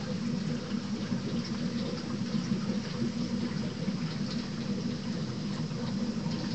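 Aquarium filtration running: a steady rush of moving water with a low hum underneath and faint scattered ticks.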